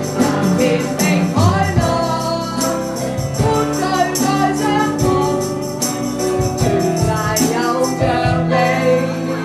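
Song with singing voices over an accompaniment with a steady beat.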